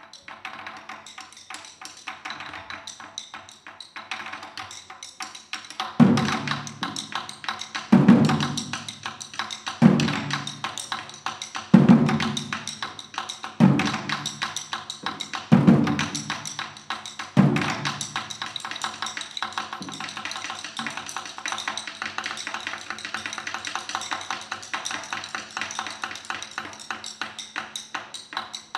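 Chinese barrel drums played with sticks: fast light tapping, then seven deep, heavy strokes about two seconds apart over continued quick tapping. From about two-thirds through, the deep strokes stop and small hand cymbals take over with rapid ringing strikes.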